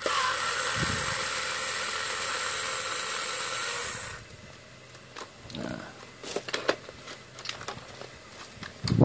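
Electric screwdriver running steadily for about four seconds, undoing the radio's case screws, then stopping abruptly; after that come light clicks and knocks as the casing is handled and lifted off.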